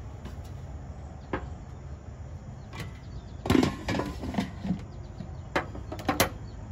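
Metal kitchen tongs clicking and knocking against an air fryer's perforated basket and a plate: scattered sharp clicks, with the loudest cluster a little past halfway and a few more near the end, over a steady low background.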